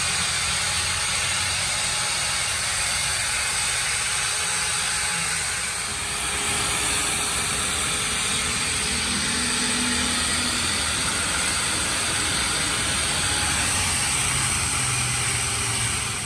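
Corded electric angle grinder running against the rusty steel front axle and wheel hub of a tractor, a steady grinding hiss with a brief dip about six seconds in.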